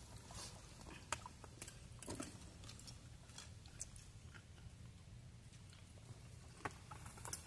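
People eating fried jaraqui: faint, scattered clicks and crunches of chewing, with a sharper click near the end.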